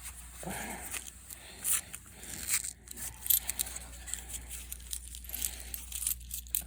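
Paper penny-roll wrapper being torn and crinkled open by hand, with scattered light clicks.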